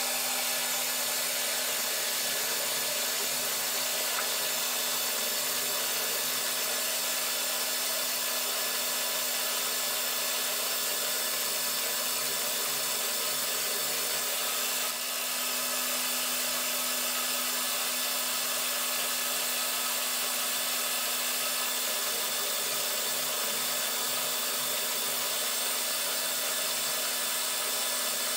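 Milling machine spindle running steadily while a small drill bit bores tapping holes for M2 threads into an aluminium plate: a constant motor and gear drone with a steady hum.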